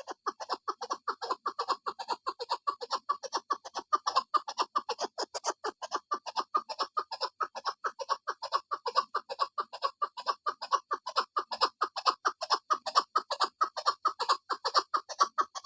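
Female chukar partridge calling: a fast, unbroken run of short clucking notes, about six a second.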